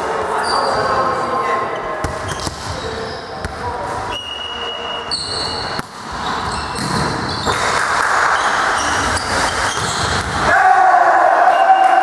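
Volleyball rally in a sports hall: the ball struck with repeated thuds among short high squeaks and players' voices, echoing in the hall. About ten and a half seconds in, the crowd starts cheering and chanting.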